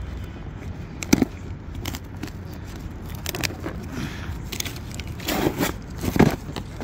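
Hands tearing and scraping at the tape and cardboard of a large box to open it: irregular scraping, crackling and rustling with sharp clicks. There are a few clicks about a second in and a louder cluster around five to six seconds in.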